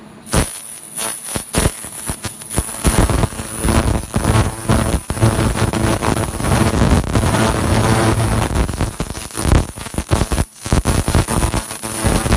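Handheld laser cleaning gun ablating dark residue off aluminum plates: a loud, irregular crackling that starts suddenly just after the beginning and drops out briefly about ten and a half seconds in.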